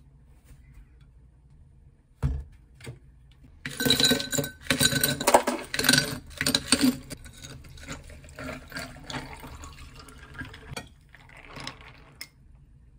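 A knock on the counter, then ice cubes tipped from a plastic container clattering loudly into a glass, with a few smaller clinks after. Near the end, coffee is poured over the ice with a short splashing rush.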